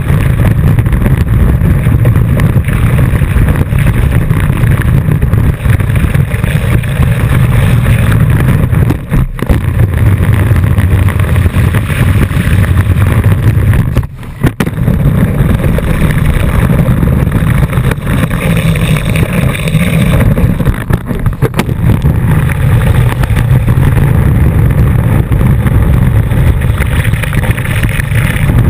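Loud, continuous rush of water spray and wind buffeting a board-mounted camera as a wakeboard is towed over the water. The noise drops out briefly about nine seconds in and again around fourteen seconds, when the board is in the air during a flip.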